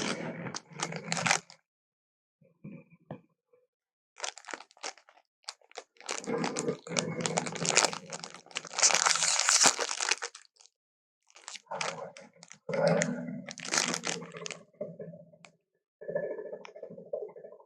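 Slowed-down, low-pitched crunching and tearing sound effect of a creature biting into and chewing food, in several bursts of crackly crunches with silent gaps between them.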